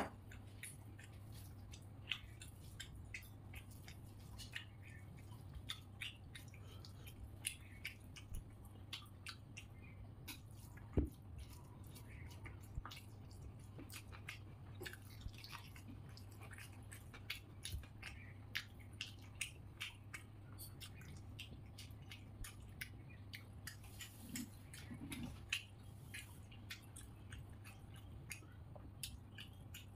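Close-miked sounds of eating rice by hand: chewing with small wet mouth clicks and smacks at an irregular pace, and soft squishes of rice pressed with the fingers on the plate, over a faint steady low hum. One sharper click comes about eleven seconds in.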